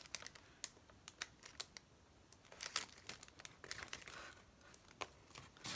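Sheets of sticker paper rustling and crinkling as they are flexed and handled, with scattered light clicks.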